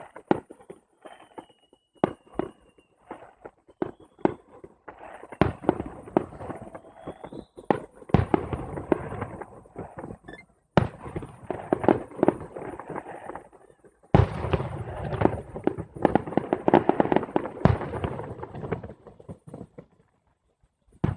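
Fireworks going off: repeated sharp bangs and dense runs of crackling, with a thin whistle in the first few seconds and a short rising whistle a few seconds later. The crackling comes in long clusters and stops near the end.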